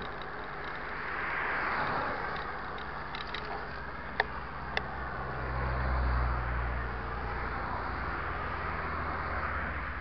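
Cars passing on a highway, their tyre and engine noise swelling and fading twice, the second pass about six seconds in carrying a deeper engine rumble. Two sharp clicks come about four seconds in, half a second apart.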